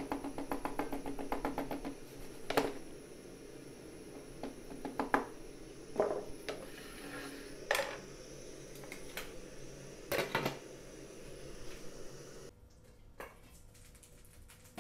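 Cooking utensils clinking against dishware: a quick run of rapid taps at the start, then single sharp clinks every couple of seconds.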